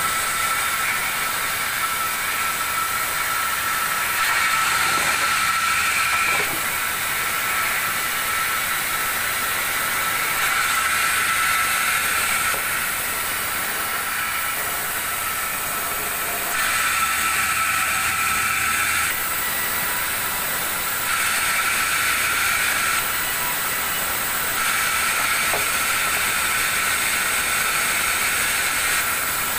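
Large band saw running and ripping big mango wood slabs into planks: a steady high whine over a hiss of cutting. The level steps up and down every few seconds.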